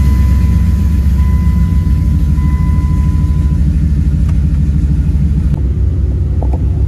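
Second-generation Dodge Ram pickup's engine idling steadily just after being started, a loud, even low rumble.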